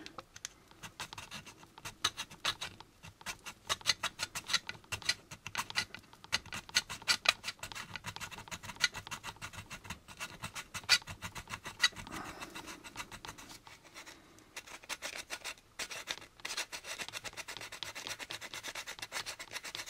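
Small metal hobby file rasping back and forth along the inside of a polystyrene model-kit part, a steady run of short scratchy strokes, several a second, with a few brief pauses. The part is being cross-sanded flat to clear away moulded bumps.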